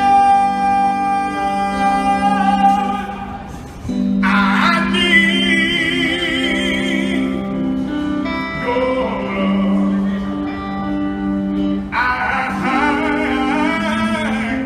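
A man singing with strong vibrato over steady held instrumental backing notes; a long held note fades out just before the singing resumes about four seconds in.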